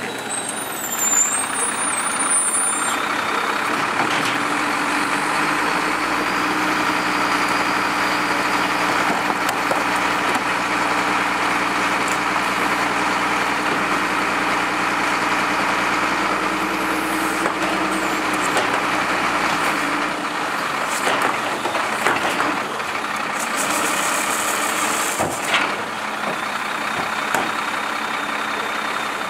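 Wittke Express manual side-load garbage truck's diesel engine running steadily while stopped at the curb, with a few short knocks and clatters in the later part as a recycling cart is emptied into the side hopper and set back down.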